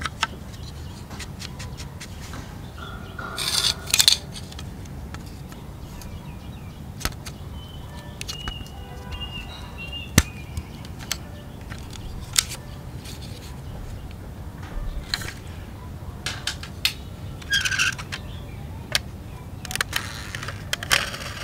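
Toy vehicle parts being handled: scattered sharp clicks and snaps, with a few short rattling scrapes, as a toy tractor's cab is pulled off its chassis.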